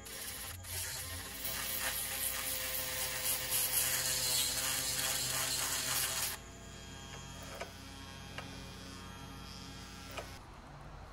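Dremel rotary tool spinning a chainsaw sharpening bit against the cutters of a chainsaw chain: a loud rasping grind over the tool's high motor whine. About six seconds in the grinding stops and the tool runs free with a few light clicks, then its whine dies away near the end.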